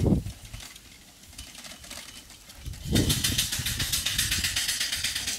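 Homemade steam motorcycle riding over grass, its steam engine exhausting in rapid, even chuffs that come in loudly about three seconds in and then slowly fade. A brief low rumble at the very start.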